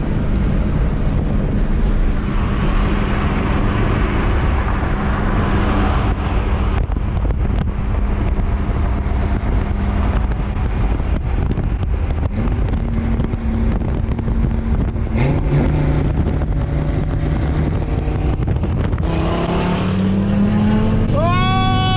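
Ford Mustang GT's 5.0 V8 running at moderate throttle, heard from inside the cabin over steady road noise, its pitch stepping up about 15 seconds in. Near the end a loud pitched sound rises and then falls.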